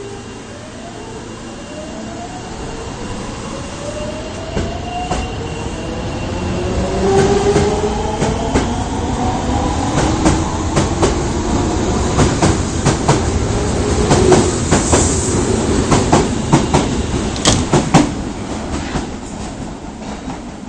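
Osaka subway 22 series train pulling out. Its traction motors whine in several tones that rise in pitch as it accelerates, then level off. The wheels clack over rail joints in a quickening run of clicks that dies down near the end.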